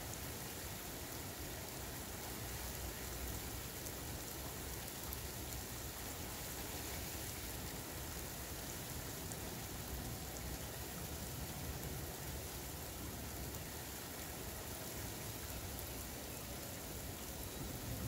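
Steady rain falling on a paved street, lawns and parked cars, an even hiss with no break.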